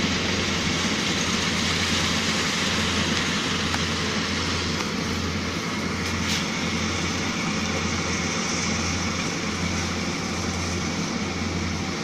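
Small GY4LZ-1.0 combine harvester running while it cuts wheat: a steady mechanical drone with a low throb that pulses a little more than once a second, fading slightly as the machine moves away.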